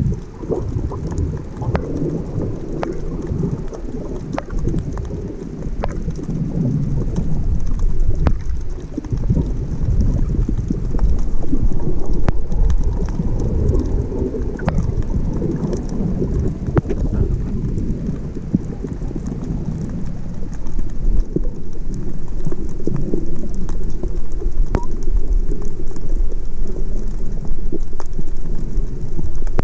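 Water noise heard underwater through a submerged camera: a muffled, continuous low rumble of moving water, with many faint sharp ticks scattered through it.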